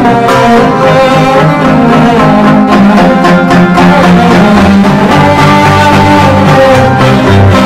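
Instrumental background music with layered held notes over a low bass line, loud and steady throughout.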